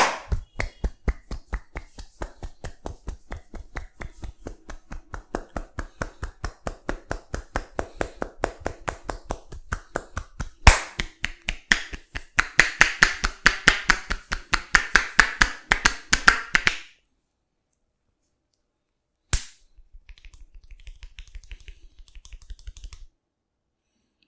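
Rapid rhythmic hand slaps of a percussive massage, about four or five a second, becoming louder and fuller about ten seconds in. After a pause come one sharp snap and a short run of faint quick taps.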